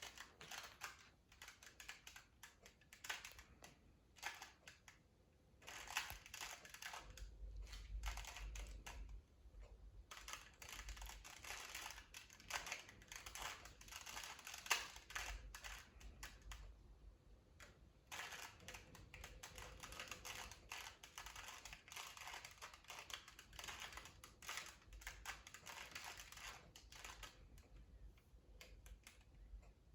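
A 2x2 Rubik's cube being turned by hand in a solve: faint, rapid runs of light plastic clicks as the layers rotate, broken by a few short pauses between bursts of moves.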